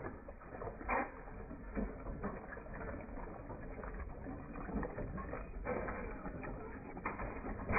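Antique engine machinery running, with an irregular clicking and clanking of moving parts; the sharpest knocks come about a second in and near the end.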